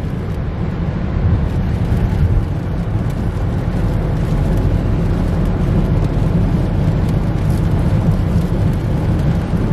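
Steady low rumble of a car, heard from inside the cabin, with no distinct knocks or clicks.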